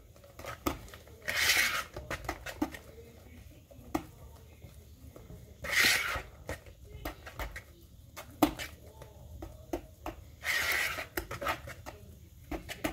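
Wire whisk beating thick madeleine batter in a plastic mixing bowl: quick, irregular clicks and taps of the wires against the bowl, with three louder hissing rushes spread through.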